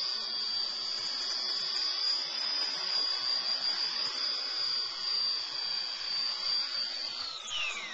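Hausler 450 v2 electric RC helicopter hovering, its motor and rotors giving a steady high whine that falls away quickly near the end as it spools down. The pilot suspects something loose in the tail.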